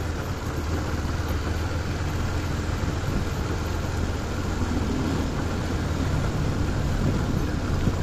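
A vehicle engine running steadily while driving, with road noise and a steady low hum.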